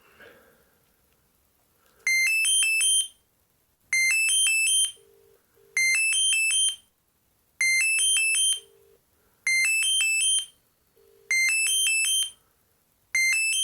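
Panasonic EB-GD93 mobile phone ringing with an incoming call: a short, quick run of rising electronic beeps, repeated seven times about every two seconds. Underneath is the faint low double burr of the calling phone's ringback tone.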